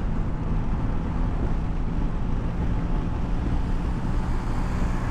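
Honda ADV150 scooter under way: a steady engine hum mixed with wind rushing over the microphone.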